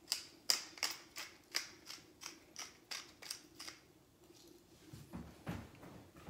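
Hand-twisted pepper mill grinding, its mechanism clicking at about three clicks a second before stopping. A couple of duller knocks follow about five seconds in.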